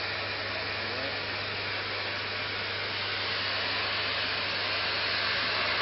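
Tsarsky (Царский) ground firework fountain by Russkiy Feyerverk burning early in its burn, a steady rushing hiss of the spark spray that grows slightly louder toward the end.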